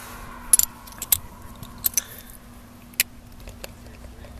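Socket wrench being put back together: about half a dozen sharp metal clicks and clinks at irregular spacing as the socket and extension are fitted, over a faint steady hum.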